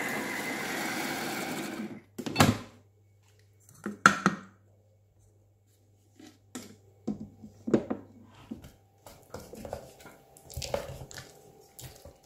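Kitchen food processor's motor blending cooked carrot and other ingredients into a purée: a steady whir that cuts off suddenly about two seconds in. Then a few knocks and light clicks, with a spatula scraping the jar near the end.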